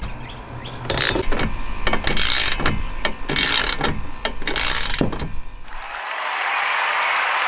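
Ratchet wrench clicking in short back-and-forth strokes as 13 mm stainless nuts are run down onto roof-rail mounting studs. About six seconds in, the clicking stops and a steady hiss takes over.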